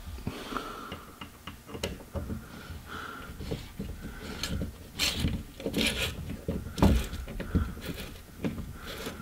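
Replacement hinge on a 2012 Ford Escape's rear hatch glass being wiggled by hand to seat it: irregular clicks, knocks and rubbing of the hinge and trim, the loudest knock about two-thirds of the way through.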